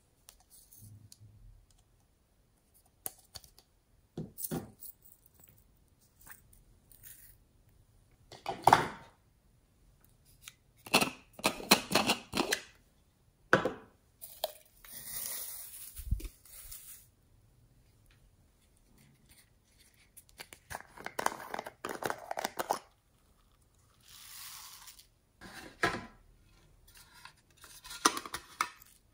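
Hard plastic novelty containers being handled and opened, with clicks and knocks of their plastic parts, and dry shredded paper filler rustling as it is tipped out toward a glass dish. The sounds come in a string of separate short bursts, the loudest about a third of the way in.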